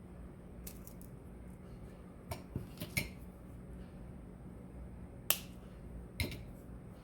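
Small sharp clicks and taps of jewelry pliers, wire and glass beads being handled on a work surface, scattered irregularly, the loudest about five seconds in.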